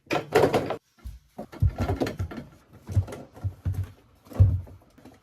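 Shoes being set onto a shoe rack: a clatter, then a string of irregular dull thumps as pairs are put down one after another.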